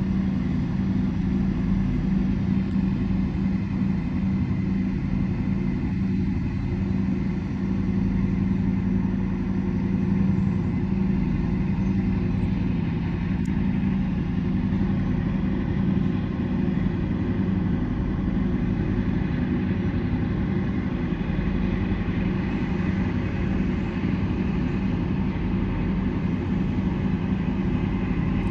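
Steady low drone of a river towboat's diesel engines as it pushes a string of loaded barges, with a constant low hum and no change in pitch.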